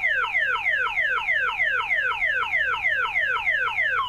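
Six-tone car alarm siren sounding a rapid falling chirp tone, about four sweeps a second, each sweeping from high to low. This is its second tone, where it now starts because the jumper for tone 1 has been cut. Right at the end it switches to the next tone, a slower falling sweep.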